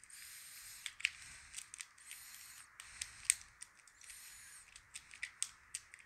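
Lock pick raking and scraping inside the pin-tumbler cylinder of a Master Lock No 5 padlock held under a tension wrench, faint scratchy rasps of about half a second each separated by sharp metallic clicks as pins are pushed and the tension is reset.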